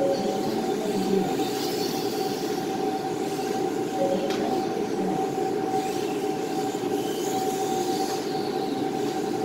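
Kyosho Mini-Z 1:28-scale electric RC cars running laps, their motors giving high whines that rise and fade as they pass, over a steady mechanical hum with a constant tone.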